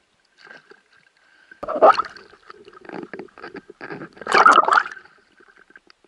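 Water splashing and sloshing at the surface as a speared bream is hauled out of the water on the spear shaft. The splashing is loudest twice, about two seconds in and again around four and a half seconds.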